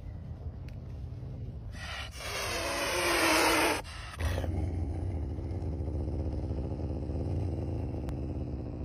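Small DC motor driving a propeller, whirring with a pitch that rises, loudest between about two and four seconds in, then cutting off suddenly. A steady low rumble runs underneath.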